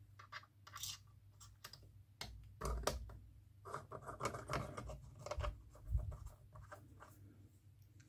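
Small metal parts being handled and fitted on an Andrä & Zwingenberger Präzima Z5 watchmaker's lathe: a string of light clicks, scrapes and taps, with two duller knocks about three and six seconds in, over a low steady hum.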